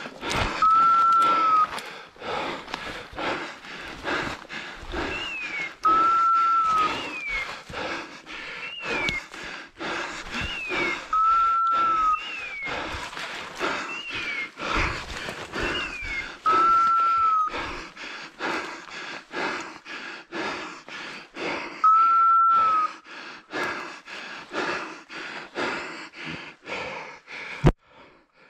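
Footsteps crashing and rustling through dry brush and juniper, while a hunting dog's beeper collar gives a steady, level beep about a second long every five to six seconds. A shorter, higher falling chirp repeats about every second and a half through the middle stretch, and a sharp knock comes near the end.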